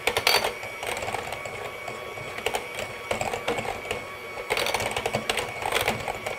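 Electric hand mixer running, its beaters whipping softened cream cheese and melted butter in a glass bowl. There is a steady motor whine, with frequent clicks and knocks as the beaters hit the glass, busiest about two-thirds of the way through.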